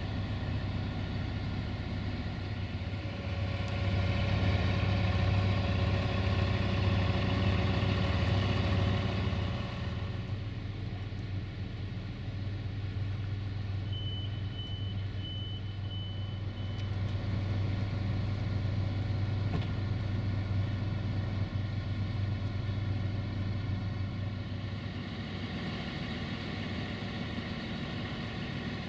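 Siemens Desiro diesel multiple unit idling at a standstill, a steady engine hum that grows louder for several seconds early on and then settles back. A few short high beeps sound about halfway through.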